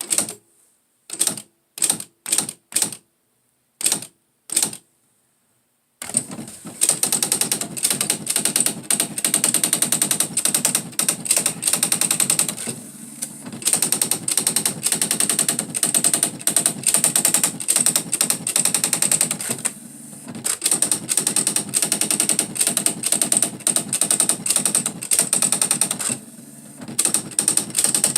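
Smith Corona SE 200 electronic typewriter printing: about seven separate strikes as single characters are typed, then from about six seconds in a fast, continuous run of print strikes as the demo prints its text, with two brief breaks.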